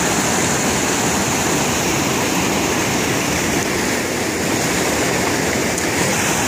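Loud, steady rush of whitewater rapids pouring over rocks in a mountain creek.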